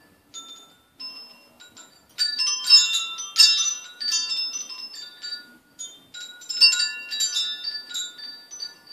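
Tubular wind chime knocked about by a cat batting at its hanging sail. A few scattered notes ring out, then the tubes jangle together from about two seconds in and again about six seconds in, each time ringing on and fading.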